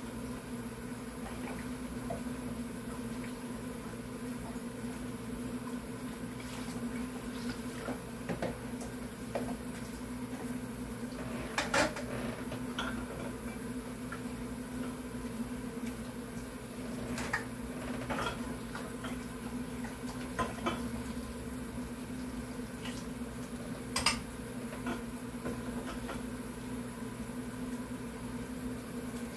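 Dishes being washed by hand in a kitchen sink: scattered clinks and knocks of plates and utensils, the sharpest about 12 and 24 seconds in, over a steady low hum.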